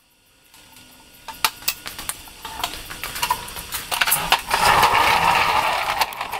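Walk-behind lawn mower being handled off a lift table and rolled across a concrete floor, engine off: scattered clicks and knocks, then a rattling rumble from its wheels and frame that is loudest near the end.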